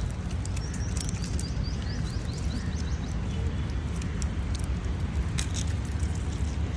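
Outdoor ambience: a steady low rumble with a quick run of short, high, upward-sliding bird chirps over the first few seconds, and a few scattered sharp clicks.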